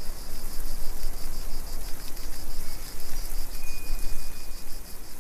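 Added outdoor nature ambience: a high insect trill pulsing about eight times a second over a loud steady hiss, with a faint thin whistle in the second half.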